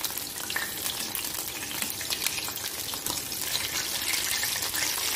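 Batter-coated chicken lollipops shallow-frying in hot oil in an iron kadai, a steady crackling sizzle.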